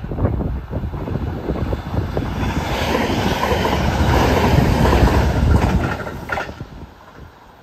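JR West 521-series electric train passing at speed close by: a rush of wheels and running gear on the rails that builds to its loudest about five seconds in, then dies away quickly after about six seconds.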